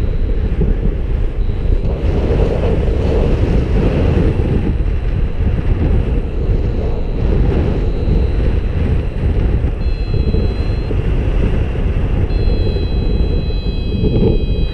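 Airflow from paraglider flight rushing over the microphone: steady, heavy wind noise. Faint steady high tones come in about ten seconds in.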